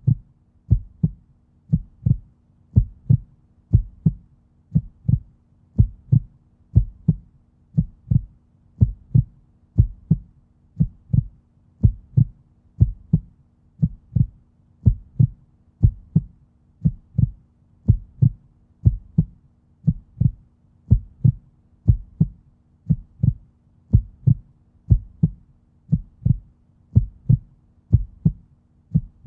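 Heartbeat sound effect: low, muffled thumps repeating in a steady, even rhythm.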